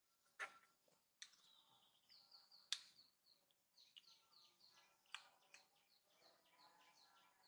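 Faint high chirping: many short calls, each falling in pitch, about three or four a second, with a few sharp clicks, the loudest about midway.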